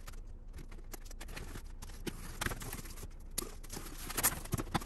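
Cardboard shipping box being opened by hand: rustling and scraping of the flaps, with short knocks of cardboard that grow busier about two seconds in and are sharpest near the end.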